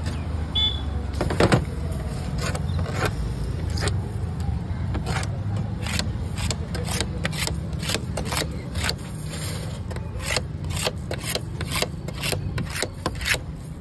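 Quick, irregular knocks and taps of utensils on hard surfaces as street food is prepared, two or three a second, over a steady low rumble of street traffic.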